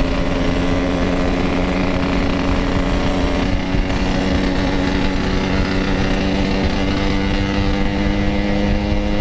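Yamaha RX-King's 135 cc two-stroke single running at a steady speed through its Packing Power exhaust while riding, the engine note holding one pitch with wind rumble underneath.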